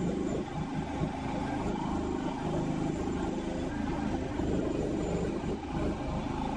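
Mini skid steer's engine running steadily under load as the machine drives.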